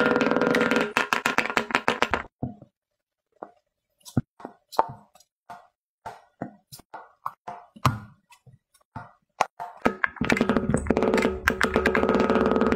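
Background music with a busy, dense beat and held tones. About two seconds in it breaks off to a sparse run of irregular single clicks and taps. The full music returns about ten seconds in, now with a deep bass.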